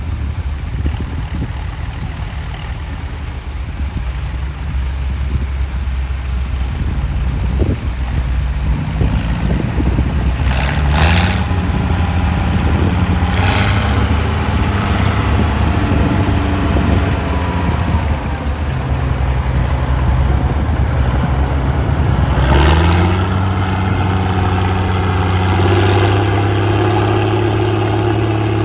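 Straight-piped Case 1056XL tractor's six-cylinder diesel engine working under load while ploughing. It grows louder over the first ten seconds, and its pitch steps up about a third of the way in and again near the end.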